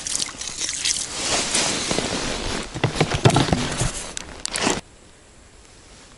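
Crunching and scraping in wet snow and slush: a slotted ice skimmer clearing slush from an ice-fishing hole, and boots crunching through snow. Many short irregular strokes, cut off suddenly near the end.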